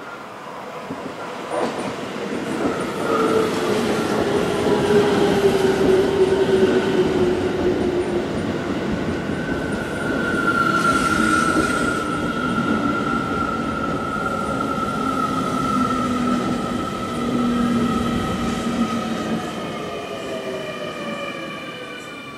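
Keio Line electric commuter train running into the platform and braking to a stop: loud rolling and wheel noise with a whine that falls steadily in pitch as the train slows, fading off near the end.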